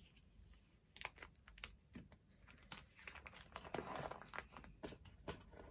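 Faint crinkling and rustling of plastic sleeves as a photocard is handled and slid into a binder pocket, with scattered light clicks and a longer rustle about three and a half seconds in.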